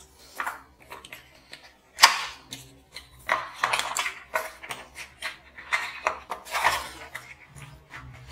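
Cardboard retail box being opened by hand: a sharp snap as the flap comes free about two seconds in, then repeated scraping and rustling of cardboard as the end flap is pried open and the inner tray starts to slide out.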